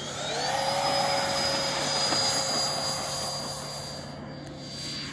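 Electric ducted fan of a radio-controlled JAS 39 Gripen model jet spooling up to takeoff power: a whine that rises in pitch over the first half-second, then holds as a steady high whine and slowly fades as the model climbs away.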